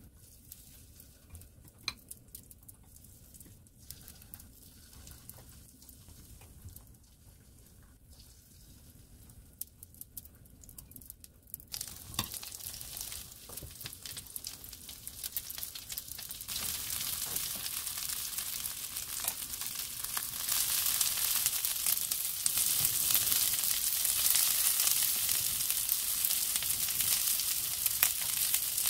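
Battered oysters frying in oil in a non-stick pan. It is fairly quiet at first, with a few light clicks of chopsticks and a spoon against the pan, then a sizzle starts a little before halfway and grows louder in steps.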